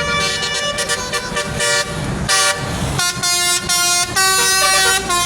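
Telolet bus horn, the multi-tone musical horn of an Indonesian bus, playing a melody of loud held notes that change pitch every half-second to a second, with a short noisy burst a little past two seconds in.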